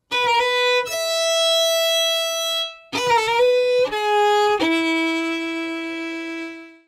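A short solo violin phrase: a few quick notes and a long held note, a brief break, then more notes ending on a long, lower held note that fades away.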